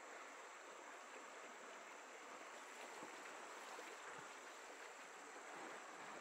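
Faint, steady rushing of flowing river water.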